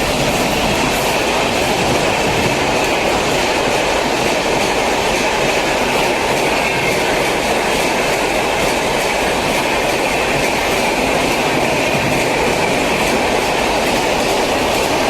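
Mumbai Shatabdi Express passenger coaches rushing past at speed: a loud, steady rumble of steel wheels on rail, with a steady high ring and a faint rapid clicking from the rail joints.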